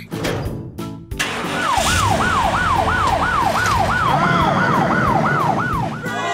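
Cartoon police-car siren wailing in quick, repeated falling sweeps, about three a second. It starts about one and a half seconds in and stops shortly before the end.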